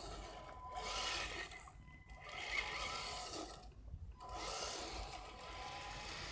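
Electric motor and gear drivetrain of an RC crawler truck whirring as it drives over grass, with a few short pauses.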